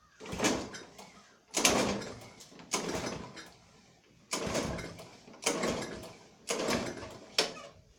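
Walk-behind lawn mower being pull-started over and over: about seven quick pulls on the recoil starter cord, each a sharp whirring rasp that fades away. The engine turns over but never catches, because the mower will not start.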